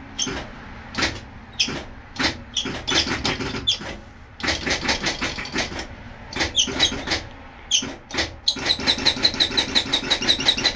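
Starting circuit of a 1974 Pierce fire engine's Detroit Diesel 8V-71 clicking as the start button is pressed: single clicks at first, then runs of rapid chattering clicks at about ten a second. The engine does not crank at all.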